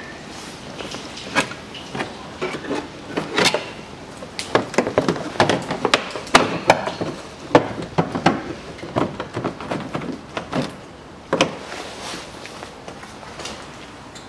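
Plastic underbody splash shield being pushed and fitted into place, giving a run of irregular knocks and clicks of plastic against the car body.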